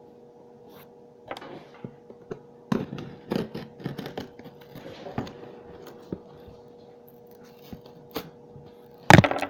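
A blade cutting through the packing tape and cardboard of a box: irregular scratchy strokes and small clicks, with a louder bump near the end. A faint steady hum underneath.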